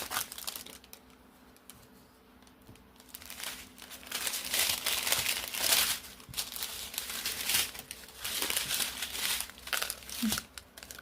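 Small plastic packets of diamond painting drills crinkling as they are handled, a loud crinkle at the start, a quieter spell of a couple of seconds, then steady crinkling in uneven bursts.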